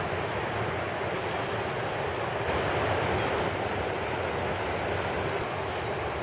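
Surf washing on the shore of the Sea of Azov, with wind noise on the microphone: a steady rushing that swells a little about halfway through.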